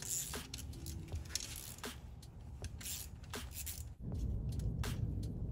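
Irregular light metallic clicks and clinks of a small hand wrench working the bolts of a fuel injector installer tool on the engine. A low rumble comes in about four seconds in.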